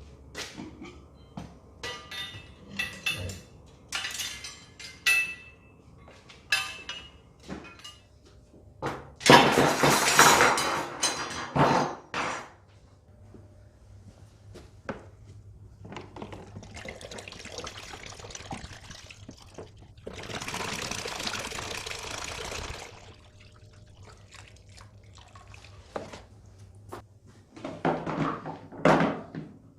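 Workshop sounds of small car parts being worked on: a run of clicks and knocks, then a loud rushing hiss lasting a few seconds, two longer steady hisses, and a last short burst near the end.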